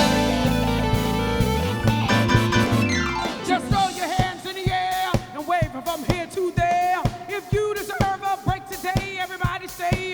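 Live soul band playing: a held chord over a strong bass for about three seconds, then the drums come in with a steady beat under a bending melody line.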